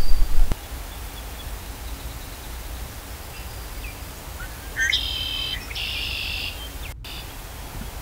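A songbird sings one phrase about five seconds in: a few short rising notes, then a buzzy trill about a second and a half long. Faint, scattered chirps of other birds sit behind it, over a low steady rumble.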